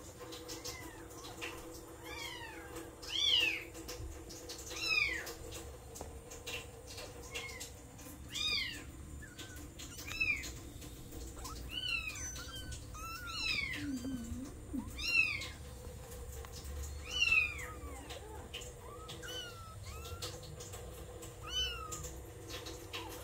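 Kittens mewing: a series of thin, high cries, each falling in pitch, about a dozen spread through the stretch, some overlapping. Faint clicks and rustling lie underneath.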